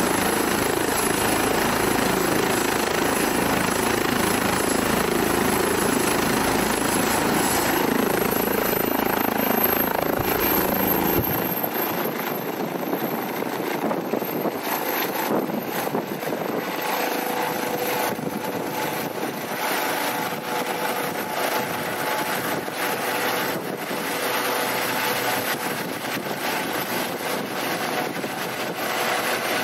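Eurocopter EC135 air ambulance helicopter running and lifting off, its rotor and turbines loud and steady. About eight to ten seconds in, the high turbine whine rises in pitch as power comes up for take-off. The deep rumble then drops away abruptly as the helicopter climbs overhead.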